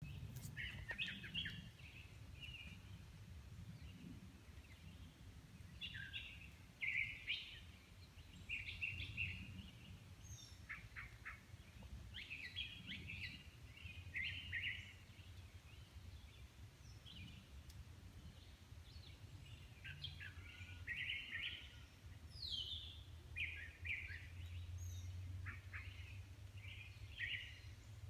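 An unidentified songbird sings short, varied phrases in a quick series, with brief pauses between them, from high in a tree. A few higher, thinner notes are mixed in. A low, steady rumble runs underneath.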